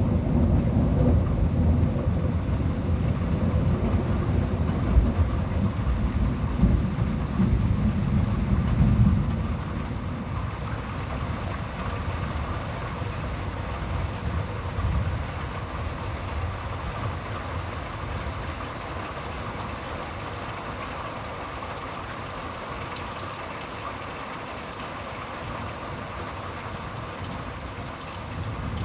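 Thunder rumbling over steady rain in a thunderstorm; the rumble dies away about a third of the way in, leaving the rain.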